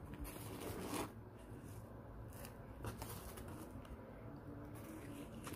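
Quiet room tone with a faint low hum, broken by a couple of soft clicks or rustles, one about a second in and another near three seconds.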